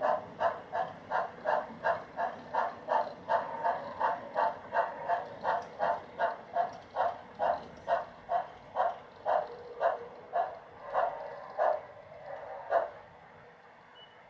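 Model steam locomotive chuffing at about three chuffs a second. The beats spread out and stop about thirteen seconds in as the engine slows to a halt.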